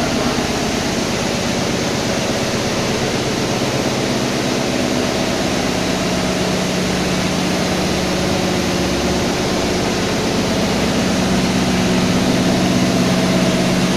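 Industrial machinery running steadily: an even mechanical noise with a low hum that grows stronger about halfway through.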